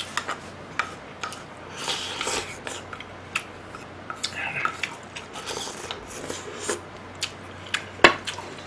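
Close-miked eating sounds: a person chewing and slurping ramen soup, with many small wet clicks from the mouth. About eight seconds in, a sharp knock as a spoon strikes the metal pot.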